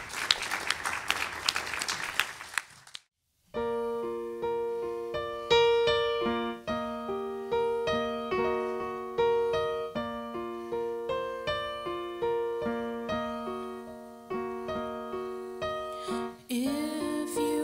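Audience applauding for about three seconds, then cut off abruptly. A piano then plays a gentle introduction of evenly paced single notes over a held low note. Near the end, a singer's voice comes in.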